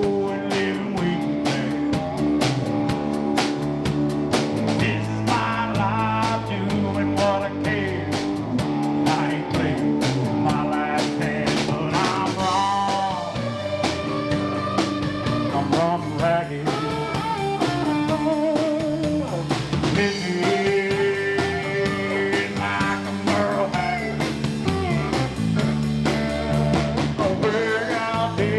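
A rock band playing live: electric guitar, bass and drums with a steady beat, and a lead guitar or singing voice over them.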